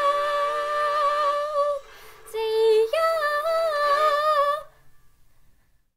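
A young singer's voice holding the final sung note of a musical number, then two more sustained sung notes, the last with a wavering vibrato, stopping a little before five seconds in.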